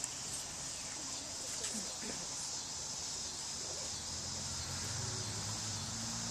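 Steady high chirring of an evening insect chorus of crickets, with a low hum coming up about four seconds in.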